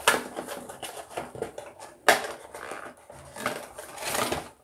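A toy's cardboard-and-plastic packaging being handled and pulled apart by hand: sharp cracks and scrapes, a loud snap about two seconds in, and a rustling scrape near the end.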